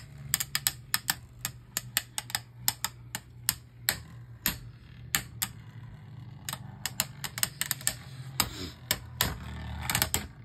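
Two Beyblade Burst spinning tops, Orpheus and Synax, clashing in a plastic stadium: quick, irregular plastic clacks several times a second as they knock together. In the last few seconds a scraping rub builds and grows louder as the tops grind against each other.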